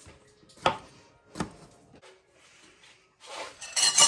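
Knife and vegetables on a wooden cutting board: two sharp knocks, then a louder scraping rub near the end as food is pushed across the board.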